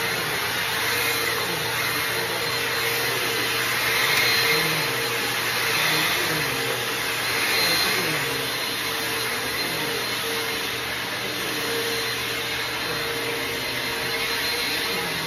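Vacuum cleaner running steadily, a continuous motor whine with a steady hum, swelling slightly in loudness every couple of seconds for a while.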